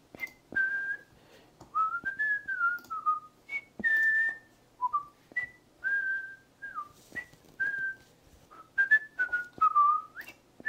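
A person whistling a wandering tune: a string of clear single notes, some held and some sliding up or down, with a few sharp clicks in between.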